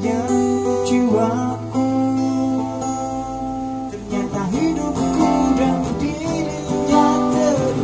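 A man singing over a strummed acoustic guitar, holding long notes that bend in pitch now and then.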